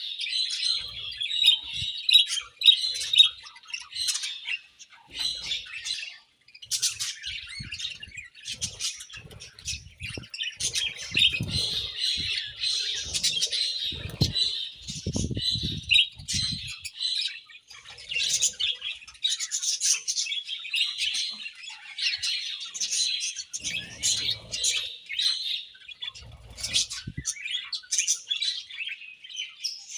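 A group of budgerigars chirping and warbling continuously in rapid, high, overlapping chatter, with a short lull about five seconds in. Scattered soft low knocks sound beneath the chatter in the middle and near the end.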